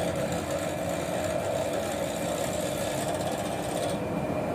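Bench drill press running, its bit cutting into a stainless-steel motorcycle silencer canister to make holes for rivets. The steady motor-and-cutting noise loses its higher hiss about four seconds in.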